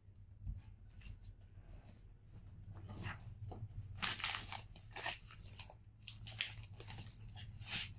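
A plastic potato-chip bag crinkling and crackling as it is picked up and handled, starting about two and a half seconds in and loudest around four to five seconds in.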